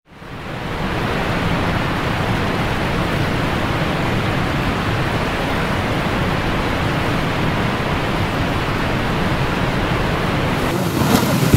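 Steady rushing noise with a low rumble, fading in over the first second and holding evenly.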